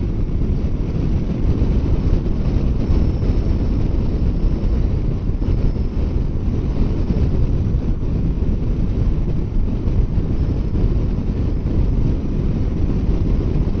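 Wind buffeting the microphone of a motorcycle riding at highway speed in strong crosswinds: a steady, loud low rumble of wind noise.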